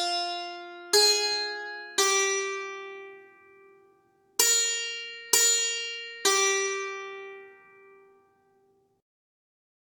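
Single notes from a sampled Indian instrument in Native Instruments' Discovery Series India Kontakt library, each with a sharp attack and a long ringing fade. There are six notes in two groups of three, about a second apart within each group.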